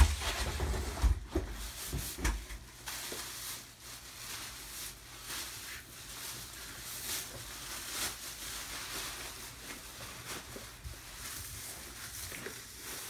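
Thin plastic bag crinkling and rustling as it is handled, with several dull thumps in the first two seconds or so.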